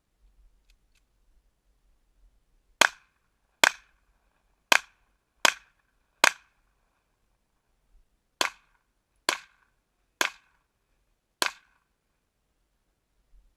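Pistol shots in a shooting-match stage: a string of five shots a little under a second apart, a pause of about two seconds, then four more.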